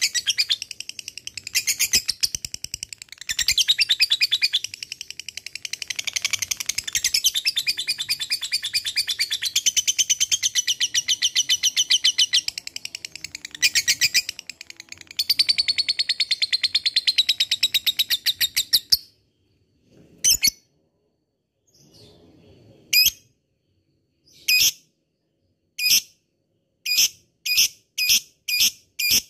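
Blue-mutation peach-faced lovebird giving its long 'ngekek': a rapid, shrill chattering trill with only brief breaks, which stops suddenly about two-thirds of the way through. After that come short separate chirps, spaced further apart at first and closer together near the end.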